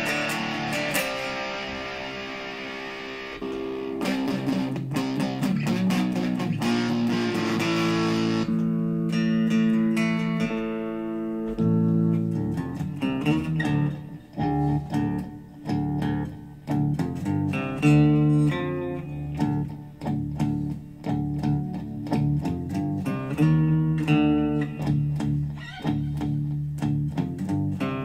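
Gibson Les Paul electric guitar played through a Digitech RP55 multi-effects processor: ringing chords for the first several seconds, then a choppier riff of short chords with brief gaps between them.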